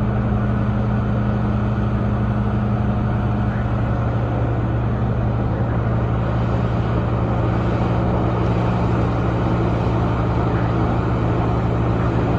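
Large diesel engine of a Cat 6015 hydraulic excavator running under steady load, a constant heavy drone whose pitch dips slightly about halfway through.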